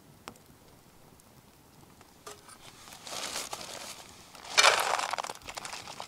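Crinkling and rustling of something being handled. It comes in bursts from about two seconds in, and the loudest is near the end.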